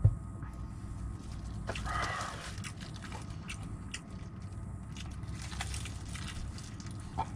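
A plastic Coca-Cola bottle is set down on a table with a single thump, then fried chicken is chewed with scattered small crunches and clicks, over a steady low hum.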